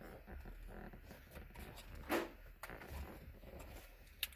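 Handling noises from car interior parts being worked by hand: scattered light clicks, a louder knock about two seconds in and two sharp clicks near the end, over a low steady hum.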